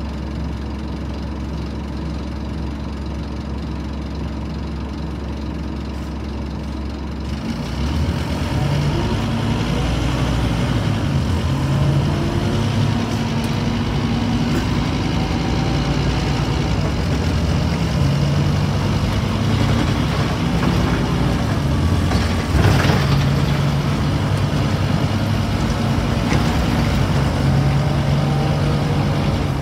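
Diesel engine of a single-deck bus heard from inside the saloon, idling steadily, then about seven seconds in pulling away: the engine note grows louder and climbs and drops in steps as the bus accelerates through its gears. A brief sharp noise cuts in once, near the last quarter.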